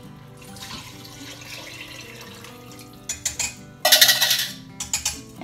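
Chicken broth poured from a plastic measuring cup into an Instant Pot's inner pot, a splashing pour of about a second near the end. A few light knocks come just before it.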